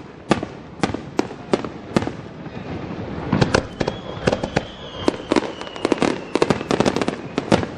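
Fireworks going off in a rapid, irregular string of sharp bangs and pops that come thicker in the second half. A faint high whistle sounds from about halfway through, slowly falling in pitch.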